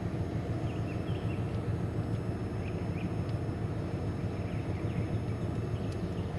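Steady low background rumble with faint, scattered bird chirps.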